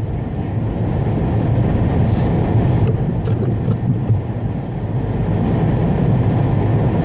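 A car driving on a snowy road: a steady low rumble of engine and tyres.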